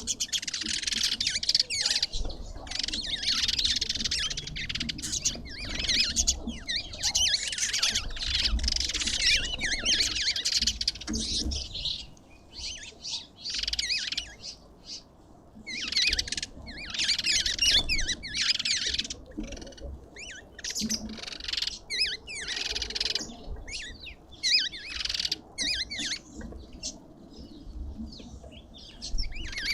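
Several birds chattering and squawking in rapid, overlapping high-pitched calls, coming in bursts with a thinner spell partway through.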